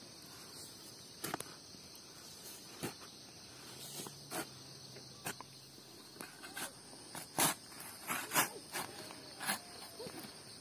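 Steady high chirring of insects, with scattered short knocks and scrapes of a long-handled hoe working the soil, the loudest about two-thirds of the way through.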